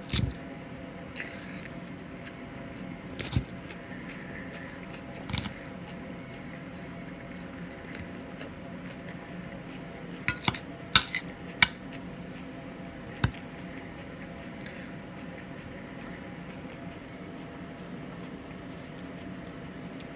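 Metal fork clinking and tapping on a dinner plate in scattered sharp strikes: one at the start, single ones about three and five seconds in, and a quick run of about five between ten and twelve seconds, over a steady background hum.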